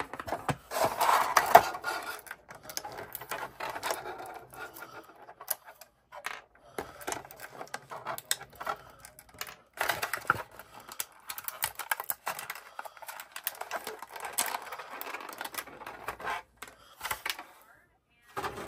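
Clear plastic blister packaging crinkling and crackling as it is handled, in irregular clusters of sharp clicks with brief pauses.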